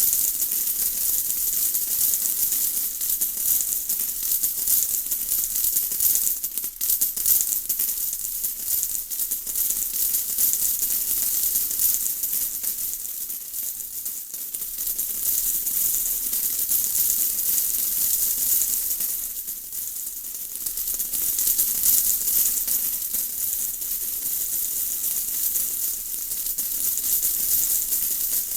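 Steady rain: a dense, crackly patter of drops, mostly high hiss, easing briefly twice, about halfway and again about two-thirds through.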